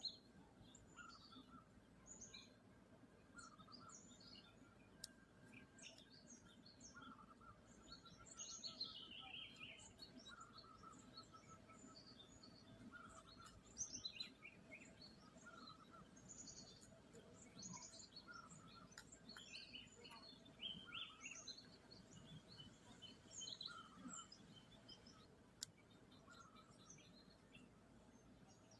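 Faint, busy mix of wild birds chirping and calling: many short calls scattered through, overlapping at times, over a low background hiss.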